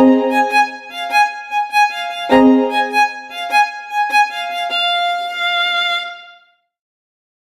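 Background music: a violin melody that opens on a sharp attack, starts a second phrase about two seconds in, and ends on a long held note that fades out about six and a half seconds in.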